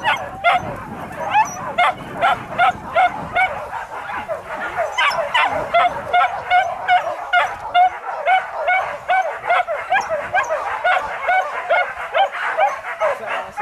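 A pack of hunting dogs yelping and baying without pause, several high yips a second, as they run on a wild boar chase.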